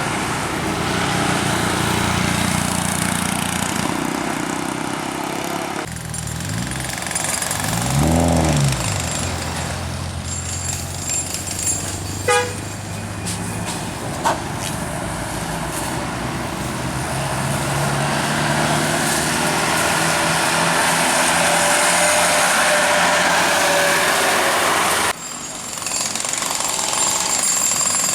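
Tour bus engines running in passing traffic, a steady low rumble under road noise. A short pitched sound rises and falls about eight seconds in, and the sound breaks off abruptly a few seconds before the end.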